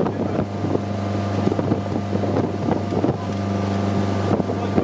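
Stingray 185LS sterndrive runabout's engine running steadily at wakeboard-towing speed, under wind noise on the microphone and rushing water, with short irregular knocks throughout.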